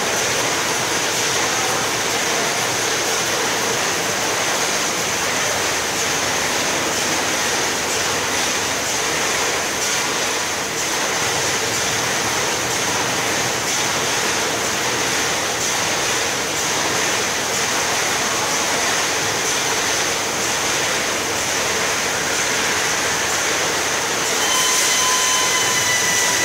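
Automatic case packer running among factory machinery: a steady, even machine noise with a thin high whine over it. About two seconds before the end a few steady tones join in and it gets slightly louder.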